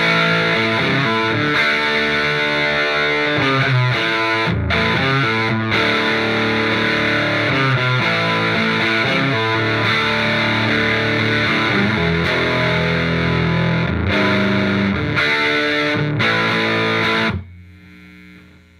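Electric guitar with heavy valve overdrive: a 1987 Gibson Les Paul 1959 Reissue with Seymour Duncan pickups played through a hand-wired Marshall JTM45 clone head with KT66 power valves, gain turned up past 6 on both jumpered channels, into a 1x12 cabinet. Distorted chords change about once a second, with a few brief breaks, until the playing stops about a second before the end, leaving the amp's mains hum.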